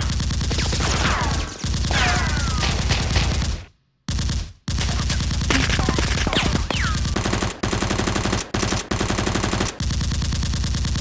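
Rapid automatic gunfire sound effects, shot after shot in a dense rattle, with a few short falling whistles over the shots. The firing breaks off for about half a second nearly four seconds in, then resumes.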